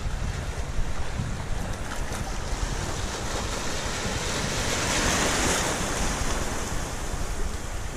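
Wind buffeting the microphone over shallow sea water, with a small wave breaking and washing past about five seconds in.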